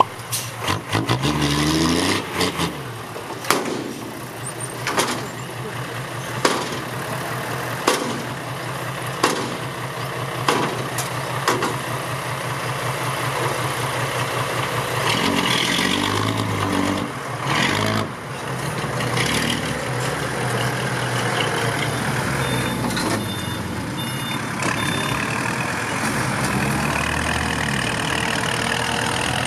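Six-wheel dump truck's diesel engine running, with sharp knocks about every second in the first half and a short run of high beeps about two-thirds through.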